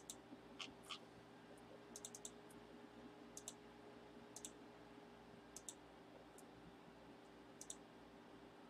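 Faint, scattered clicks of a computer mouse and keys, some in quick runs of three or four, over a low steady hum.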